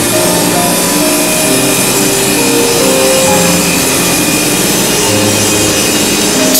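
Background music with a melody plays over a steady hissing machine noise from a PVC foam board production line.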